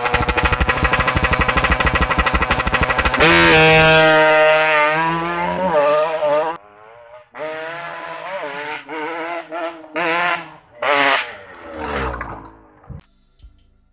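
Yamaha RX-King two-stroke single-cylinder engine breathing through a Packing Power PK2 expansion exhaust. It runs at high revs with a fast, harsh crackle for about three seconds, then its pitch drops away. After that come a series of short throttle bursts that rise and fall, fading out near the end.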